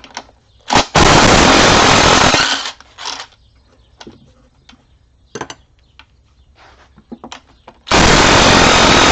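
Power impact wrench hammering in two bursts of about a second and a half each, several seconds apart, loosening bolts on the NP229 transfer case. Small tool clicks and knocks come between the bursts.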